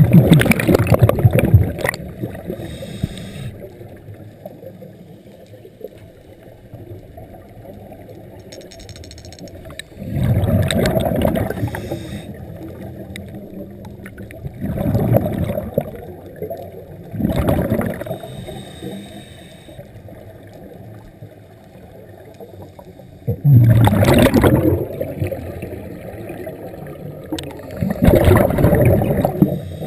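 Scuba diver breathing through a regulator underwater: a bubbling rush of exhaled air every few seconds, about six times, with a faint water hiss between.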